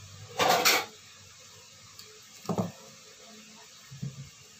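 Table noises of eating fish by hand from ceramic plates: a short rustling burst, in two quick pulses, about half a second in, then a couple of softer, duller sounds later.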